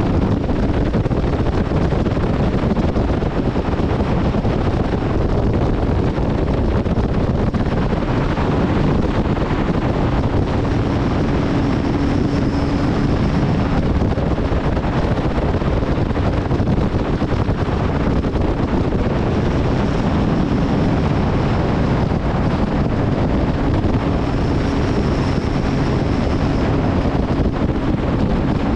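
Wind rushing over the microphone of a Nitro bass boat running at speed on its Mercury outboard, with the engine's hum and water noise underneath. The engine's tone comes up a little a few times.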